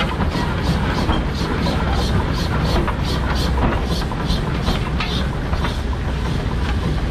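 Thew Type O steam shovel's steam engine running, its exhaust chuffing rhythmically at about three beats a second, the beats growing slower and more irregular about halfway through, over a low steady rumble.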